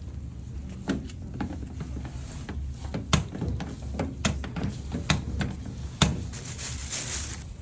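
Irregular clicks and knocks, a few of them sharp, over a low steady rumble.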